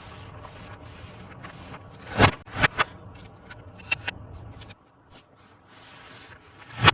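Hands handling a plastic toy and its packaging: rubbing and scraping, with several sharp clicks or knocks, the loudest about two seconds in and again at the end.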